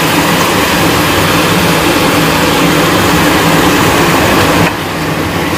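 A steady, loud rushing noise with a low hum from a stovetop where stingray pieces are cooking in a pan, easing slightly near the end.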